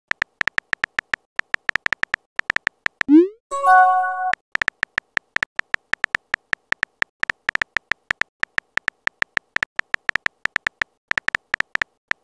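Rapid synthetic keyboard-typing clicks from a texting-story app. A little after three seconds they break for a quick rising swoosh and a short chime as a message is sent, then the typing clicks resume.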